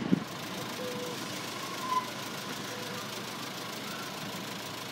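Steady low rumble of idling engines, with faint brief tones and a couple of small clicks.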